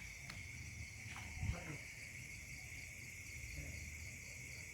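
Steady high-pitched drone of insects at night, with a faster pulsing chirp above it in the second half. A few faint clicks and a dull thump about a second and a half in, likely handling of the phone or a footstep.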